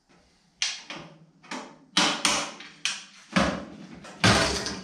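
Hand wrench clanking and knocking against stuck nuts, about eight separate sharp metal knocks, the heaviest one near the end.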